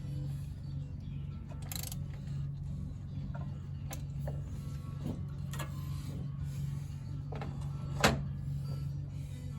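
Scattered clicks and knocks of tools being worked, over a steady low hum, with one sharp knock about eight seconds in.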